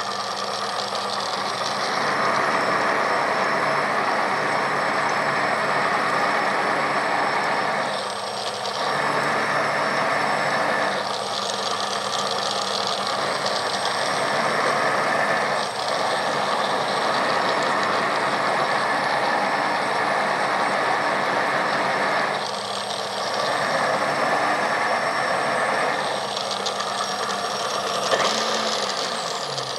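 Philips HR7776 food processor motor running its citrus-press cone, the sound shifting every few seconds as orange halves are pressed down onto it and lifted off. Near the end it is switched off and winds down with a falling hum.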